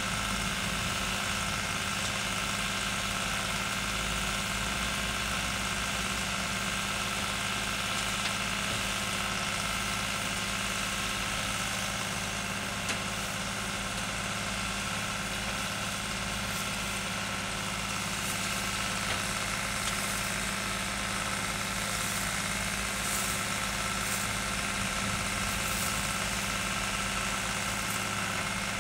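Tractor engine running steadily, driving a Montecor chopper-mixer through its power take-off as it chops vegetables, leaves, branches and straw; an even, unbroken drone with no change in speed.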